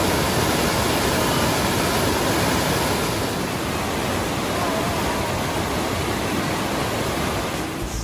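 Rushing white water of a mountain stream cascading over boulders: a steady, dense rush of falling water.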